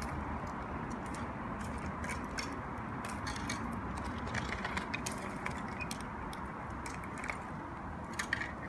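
Bamboo campfire crackling: scattered sharp pops and ticks over a steady low rushing noise.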